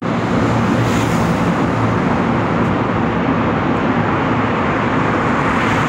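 Steady traffic noise inside a road tunnel: a loud, even rush with a low engine hum beneath it.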